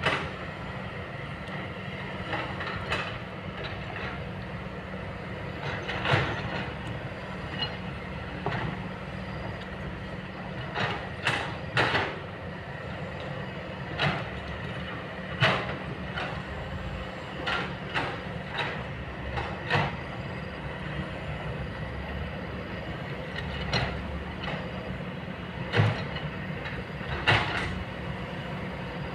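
Kobelco long-boom excavator's diesel engine running steadily, with irregular sharp knocks every second or few seconds as it works.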